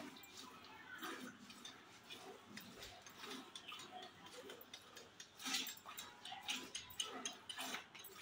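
Hand-milking a cow into a steel bucket: repeated short squirts of milk hitting the pail, about two a second.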